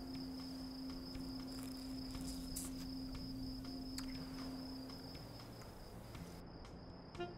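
Crickets chirping steadily in a night-time background, with a long held low tone underneath that stops about five seconds in.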